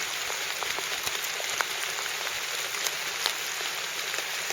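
Steady hiss of rain falling, with scattered faint drop ticks.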